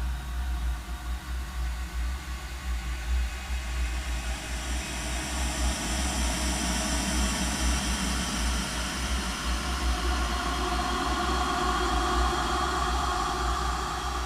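A woman's coughing fit slowed down roughly twenty-four times, smeared into a long droning, rumbling noise with faint tones that shift slowly. It grows a little louder in the second half.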